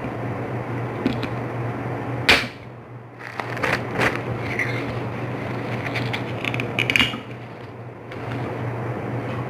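Someone eating bakso meatball soup: a spoon clicks sharply against the bowl a few times, with eating sounds in between, over a steady low hum.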